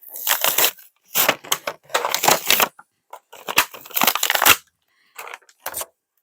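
Plastic toy packaging being torn open and crumpled by hand, in about five short crackling bursts with brief pauses between them.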